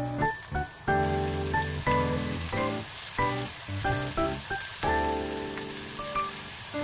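Chopped onion and minced garlic sizzling in hot oil in a wok, the sizzle starting suddenly about a second in as the onion goes into the pan. Background music plays throughout.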